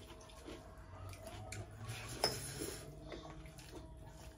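Fingers mixing rice with gravy on plates during a meal: soft, wet squishing, with one sharp clink of dishware a little over two seconds in.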